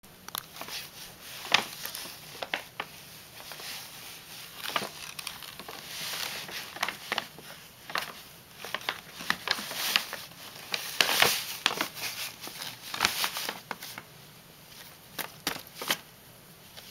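Brown paper shopping bag crinkling and rustling in irregular bursts as a cat rubs its head against it and paws at it.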